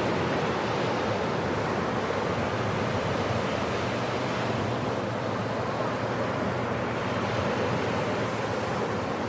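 Sea waves washing on the shore, a steady rushing surf without distinct breaks, with some wind on the microphone.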